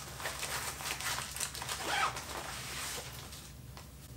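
Rustling and crinkling of a fabric waist pack handled by hand, fading out after about three and a half seconds. A short rising squeak is heard about halfway through.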